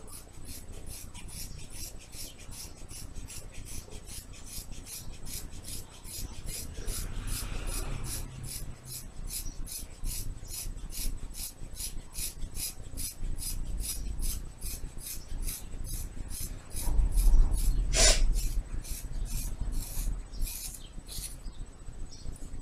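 Scissors cutting through a thick ponytail of hair: a steady run of short crunching snips, a little over two a second, stopping shortly before the end. About three-quarters of the way through there is one louder snip with a low thump.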